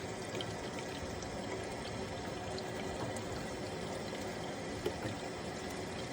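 Water running steadily from a plumbing fixture, an even pouring rush.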